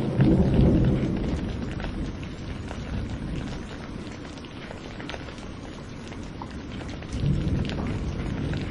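Steady rain with scattered drop ticks, and rolling thunder. A low rumble fills the first second or so and fades, and another rumble swells about seven seconds in.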